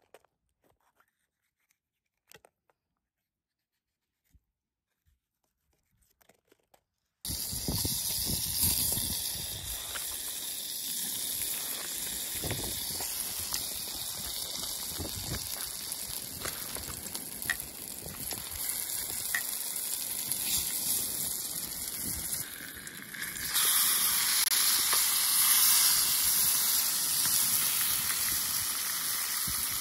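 Near silence with a few faint clicks, then about seven seconds in food starts sizzling steadily in a frying pan on a camping gas stove. About 23 seconds in the sizzle gets louder as meat goes into the pan.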